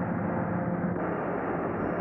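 Steady mechanical engine din of airport ground vehicles and aircraft on the apron, with a low steady hum running through it; the tone of the noise shifts about a second in.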